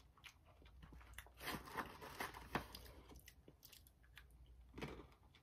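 A person chewing a mouthful of dry roasted chickpeas: faint, irregular crunches.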